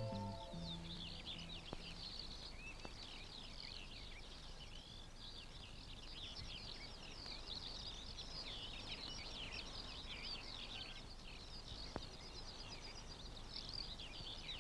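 Many small birds twittering together in a dense, continuous stream of quick, faint chirps. A held low note of music dies away in the first second.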